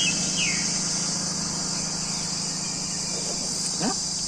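Steady chorus of crickets, a constant high-pitched trill, over a low steady hum, with a few brief chirps near the start and a short rising sound near the end.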